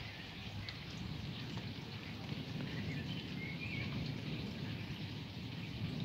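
Steady rain falling, with a low rumble of distant thunder from a thunderstorm that grows slightly louder toward the end.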